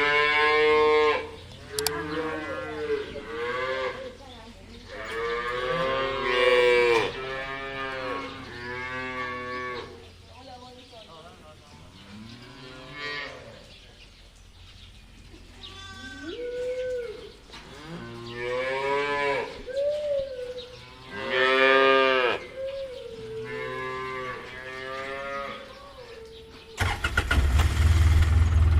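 Cows mooing: a string of drawn-out calls that bend up and down in pitch, with short gaps between them. About two seconds before the end, a loud, steady, engine-like rumble cuts in.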